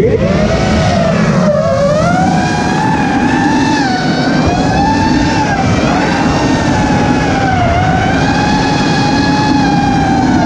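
Nazgul 6S FPV quadcopter's brushless motors and propellers whining as it flies, recorded on board; the pitch swings up and down with the throttle, dipping about one and a half seconds in and again near the end, over a rush of air noise.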